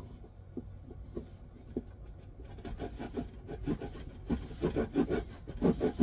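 Small hand saw cutting a notch into a wooden stick with back-and-forth strokes, faint at first, then louder and faster from about halfway, about four strokes a second.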